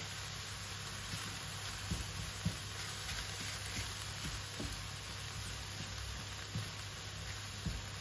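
Minced onion and garlic sizzling in a stainless steel skillet as a silicone spatula stirs them, with several soft taps of the spatula against the pan.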